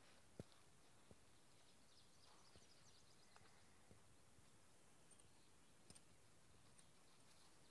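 Near silence: faint outdoor background with a few soft clicks and some faint high chirps about two to three seconds in.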